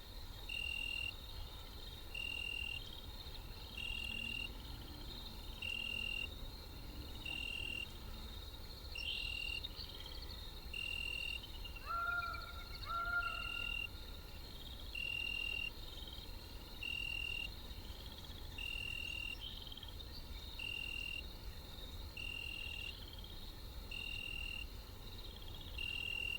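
An insect chirping in an even rhythm, one short high-pitched chirp about every second and a half. Two brief lower calls from another animal come about halfway through.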